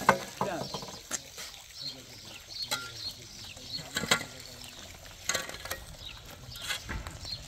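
Shovel and cement-bag work on a sand pile: irregular sharp scrapes and knocks, with small birds chirping.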